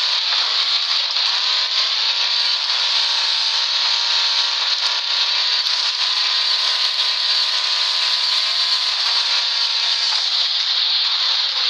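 A vehicle engine running at a fairly steady pitch that wavers a little, under a strong hiss.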